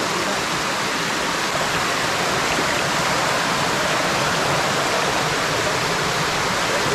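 Charco Prieto waterfall rushing steadily as a loud, even hiss of falling water, running full after heavy rain the day before.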